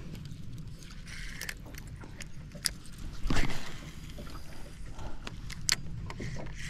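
Rod and spinning reel being worked to jerk and retrieve a lure: scattered light clicks and handling noise over a steady low rumble, with a louder thump about three and a half seconds in.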